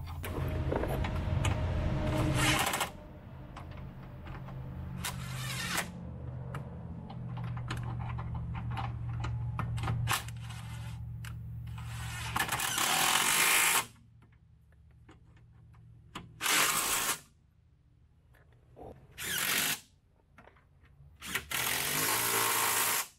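A power tool running, steady for about twelve seconds, then in four short bursts in the second half.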